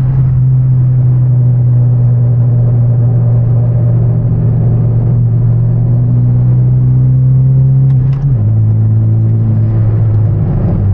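Hyundai Genesis Coupe's turbocharged four-cylinder engine running through an aftermarket exhaust with a steady drone while cruising. The engine note drops to a lower pitch about eight seconds in.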